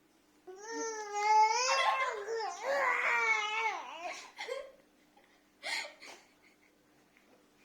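A five-month-old baby vocalizing: a long, wavering, pitched sound that rises and falls for about four seconds, then a short breathy sound near six seconds in.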